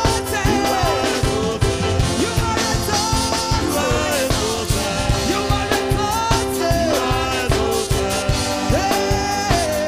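Live gospel praise music: a woman singing lead into a microphone, with backing singers and a band keeping a steady drum beat.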